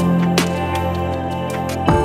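Background music: a calm new-age style track of held chords with a few light percussive hits, with a new chord struck just before the end.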